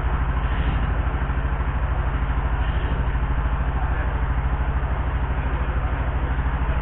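Heavy engine idling steadily, with an even low pulsing throb.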